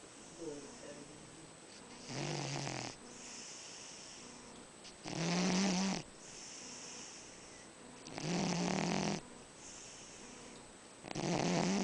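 A cat snoring in its sleep: four loud snores about three seconds apart, each a low, pitched snore lasting about a second, with softer breaths between.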